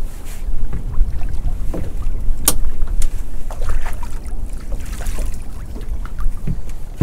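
Wind rumbling on the microphone in a small open boat, with scattered light knocks and clicks of fishing tackle being handled; one sharp click about two and a half seconds in.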